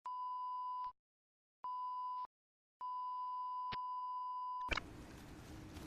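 Three electronic beeps of one steady pitch: a short one, a shorter one, then a long one of nearly two seconds that cuts off with a click into a steady hiss.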